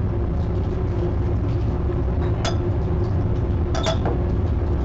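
Steady low rumble of a laboratory fume hood's exhaust airflow, with two sharp glass clinks, one about two and a half seconds in and one near four seconds, as a glass flask knocks against a glass beaker while being emptied.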